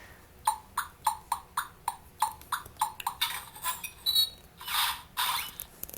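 A toy sound book's little speaker plays a steam-train effect: quick, even chuffs about three a second, then a few longer hissing bursts.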